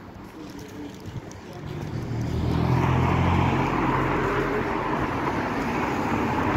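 A motor vehicle passing close by on the road: engine hum and tyre noise swell about two seconds in and stay loud.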